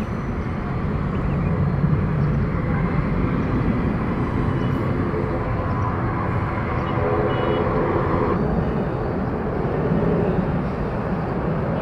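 Twin-engine jet airliner climbing away after takeoff, its engines a steady low rumble. The sound changes abruptly about eight seconds in.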